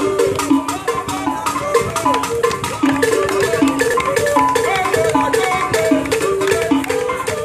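Live hand drumming on tall wooden drums with a rattle, voices singing a repeating chant over it, and people clapping along in time.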